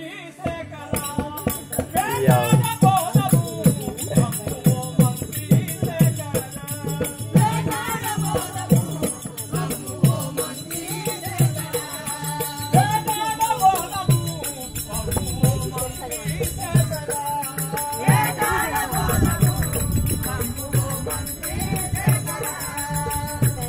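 Live folk stage music: a voice sings a wavering melody over a hand drum beaten in a steady rhythm of about two strokes a second, with a continuous high metallic jingling above.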